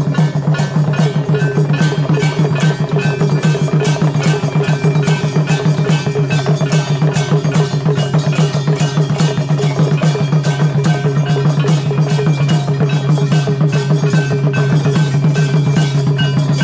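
Temple aarti percussion: metal bells clanging rapidly together with steady, fast drumming, ringing on without a break.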